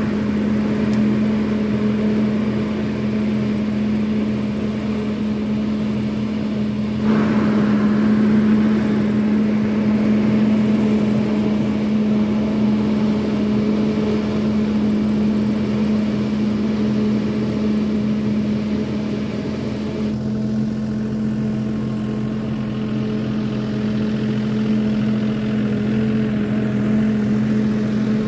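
John Deere 5075E tractor's diesel engine running at steady, constant revs while working a crop sprayer, with the noise stepping up about seven seconds in.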